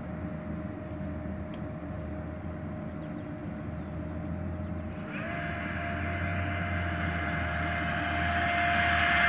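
Electric ducted fans of a Supreme-Hobbies Airbus A320 RC model airliner spooling with a steady whine and rush of air. About five seconds in the throttle is advanced: the whine steps up in pitch and the fan noise grows louder as the model begins its takeoff roll.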